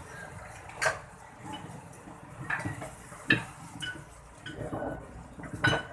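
Metal engine parts and tools clinking and tapping during piston-and-ring work, with three sharper knocks: about a second in, a little past three seconds, and near the end.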